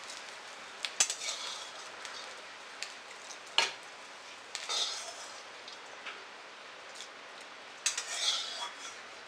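Metal spoon clinking and scraping against steel cookware as ghee-fried rice and cashews are spooned into a pot of hot milk. There are single sharp clinks, the loudest about three and a half seconds in, and a burst of clinks and scraping near the end.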